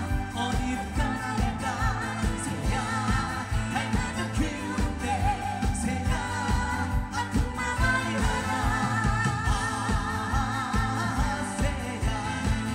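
Live Korean pop song: a band with a steady drum beat under a singer's wavering, held notes.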